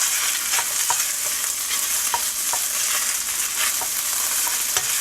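Egg fried rice sizzling in a hot oiled pan while it is stir-fried, with scattered light taps and scrapes of a spatula's edge on the pan as clumps of rice are broken up.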